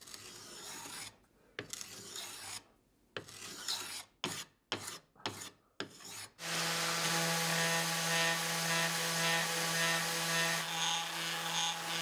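A hand rasp scraping across a walnut board in separate strokes, which get shorter and quicker before stopping. About six seconds in, a random orbital sander starts and runs with a steady hum.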